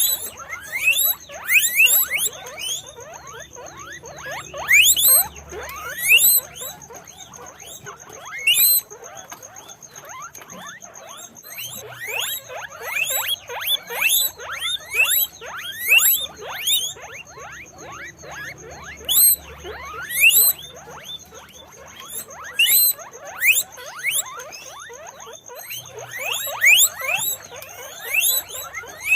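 Guinea pigs squeaking: many short rising squeaks, often overlapping, coming in loud clusters with brief lulls between.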